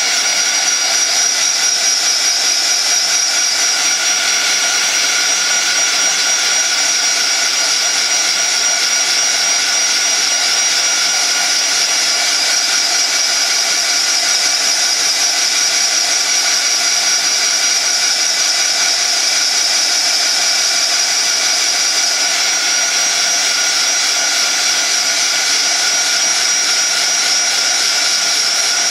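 Heat gun running steadily, an even rush of air with a high whine, blowing hot air over wet glue and acrylic paint to dry it into a crackle finish.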